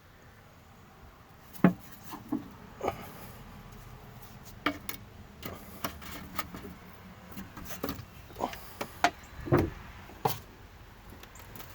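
Scattered light knocks, clicks and rubbing as containers of two-part urethane foam and tools are handled during preparation of a 50-50 mix, about a dozen separate knocks with short gaps between them.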